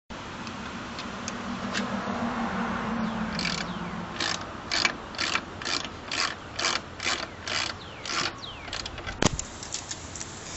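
Socket ratchet wrench clicking as an alternator bolt is loosened: about ten quick back-strokes, each a short burst of pawl clicks, a little over two a second, followed by one sharp click near the end.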